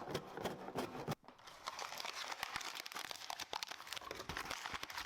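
Packaging being handled, crinkling and rustling with quick irregular clicks, with a short break about a second in.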